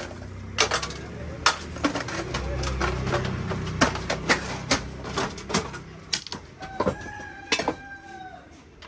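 Repeated clinks and knocks of gas-stove burner parts and a glass jar being handled and scrubbed, with a rubbing rumble in the first half. A rooster crows in the background about seven seconds in, its last note falling.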